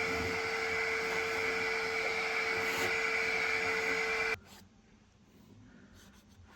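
Genmitsu 3020 PRO MAX V2 CNC router spindle running with a steady whine while milling an MDF fixture board, cutting off suddenly about four seconds in.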